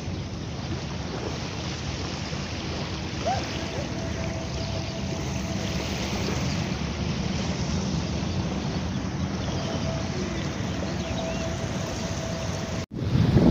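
Wind buffeting the microphone, a steady low rumble, with a faint hum that comes and goes and a brief dropout near the end.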